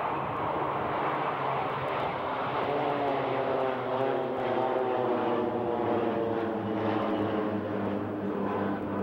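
Formation of Embraer T-27 Tucano turboprop trainers flying past, a steady propeller drone whose pitch shifts about three to five seconds in as the planes go by.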